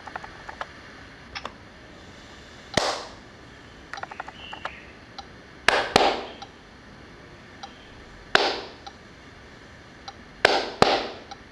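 Sharp hand claps, singly and in pairs: one clap, then a quick pair about six seconds in, another single clap, and a final pair near the end. Each clap is the signal that trips the LEGO NXT sound sensor to switch its lamp on or off. Fainter ticks fall between the claps.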